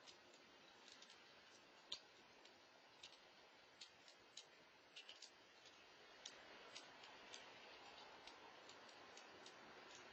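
Near silence with faint, irregular small clicks, around two a second, over a low steady hiss.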